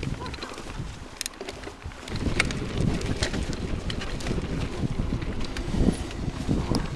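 Hardtail mountain bike riding over a dry dirt forest trail: tyre rumble and wind buffeting the action camera's microphone, with scattered sharp clicks and rattles from the bike. The rumble grows louder about two seconds in.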